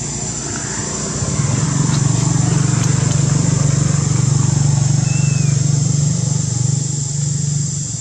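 A motor vehicle engine running steady and low nearby. It swells about a second and a half in and drops away near the end, over a steady high-pitched buzz.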